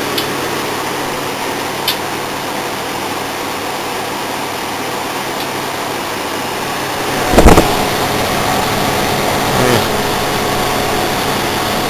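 Small 5000 BTU window air conditioner running on high cool: the fan blowing steadily over a low compressor hum, with little air seeming to come through the coils. One loud knock about seven and a half seconds in.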